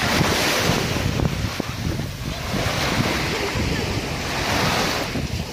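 Small sea waves breaking and washing up a sandy shore in two swells, with wind buffeting the microphone.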